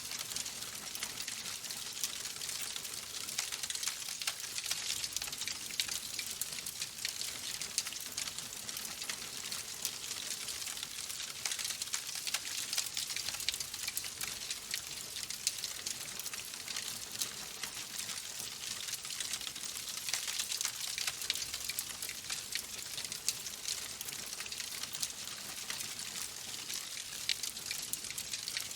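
Logs burning in a fireplace: a steady hiss dotted with many small, sharp crackles and pops.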